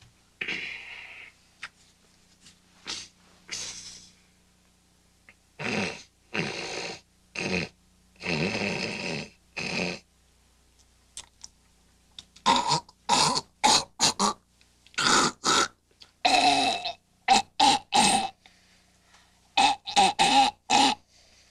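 A man snorting and hawking, loudly clearing his nose and throat in a long series of separate bursts that come faster and turn honking and nasal in the second half. It is him clearing his pipes to head off loud snoring.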